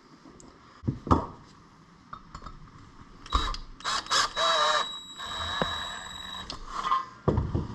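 Work on motorcycle air-intake parts: scattered clicks and knocks of tools and metal parts, with a brief rasping noise about four seconds in and a thin steady high tone for a couple of seconds after it.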